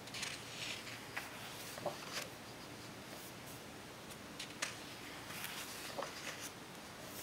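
Pages of a large photo book being turned by hand: faint paper swishes and rustles in short strokes, with light touches of fingers sliding on the paper.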